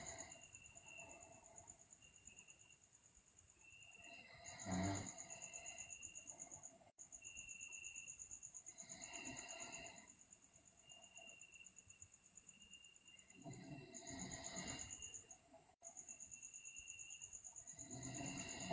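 Sleeping girl breathing slowly, with a soft snore on each breath about every four to five seconds. Behind it a steady, high-pitched cricket trill runs on, with a few brief breaks.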